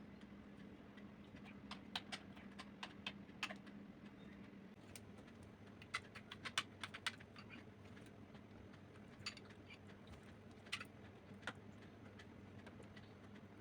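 Faint scattered clicks and taps of cutlery on dishes while eating, coming in small clusters a few times, over a low steady hum.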